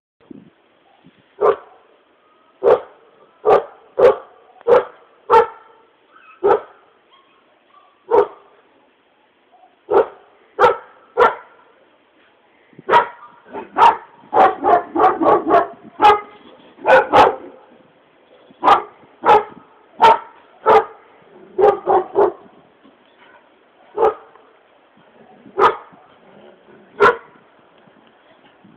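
Bulgarian shepherd dogs barking: single barks about a second or two apart, with a quick run of barks about halfway through.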